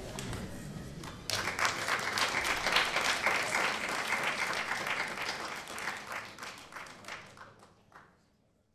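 Audience applauding: the clapping starts suddenly about a second in, then thins out and dies away near the end.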